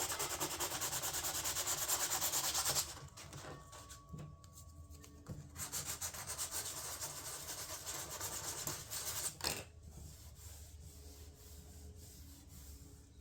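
Sandpaper being rubbed back and forth by hand over a fiberglass and epoxy door panel repair, levelling the patch. It goes in two spells of steady rasping strokes, with a short pause after about three seconds, and it stops about three seconds before the end.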